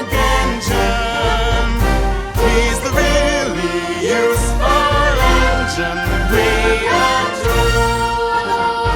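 Upbeat orchestral pop music with singing, the closing bars of the song, settling onto a long held chord near the end.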